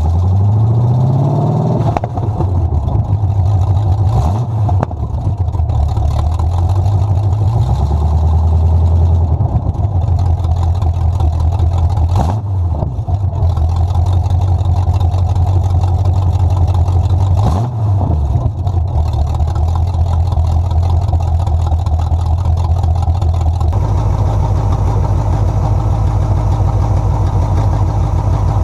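Carbureted small-block Chevy V8 with headers, running and being blipped: it revs up in the first couple of seconds, rises and falls several more times, then settles to a steady idle about 24 seconds in.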